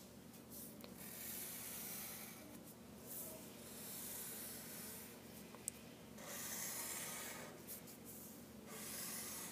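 Sharpie permanent marker drawn across paper in several long, faint strokes, each rub lasting up to about a second, as straight lines are ruled freehand.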